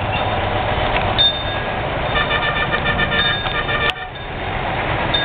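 Street traffic running, with vehicle horns honking. About two seconds in, a horn sounds in rapid repeated pulses for nearly two seconds and stops with a sharp click.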